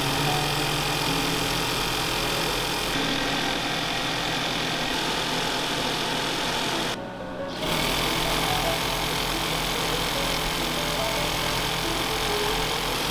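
Brother industrial sewing machine running steadily, stitching strands of hair into a wig weft. The machine sound drops out briefly just past the middle, then resumes.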